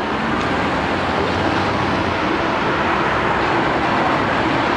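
Steady city street traffic: cars and taxis driving past, with a Sapporo streetcar running into its stop.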